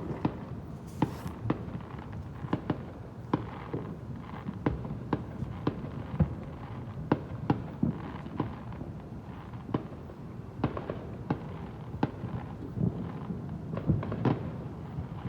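Fireworks going off in a steady barrage: irregular sharp bangs and pops, a couple every second, over a continuous low rumble of further bursts.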